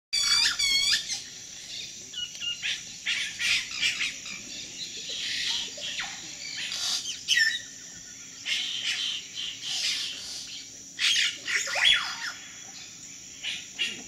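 Amazon rainforest dawn chorus: many birds calling over one another in short chirps and whistles, opening with a quick run of falling piping notes, with a rising whistled call near the end. A steady high insect buzz runs underneath.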